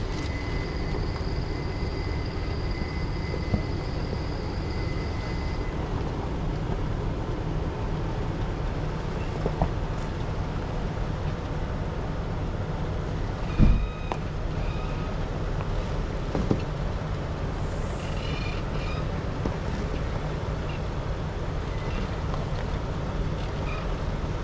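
Off-road vehicle engine running with a steady low rumble, with one loud sharp thump about fourteen seconds in.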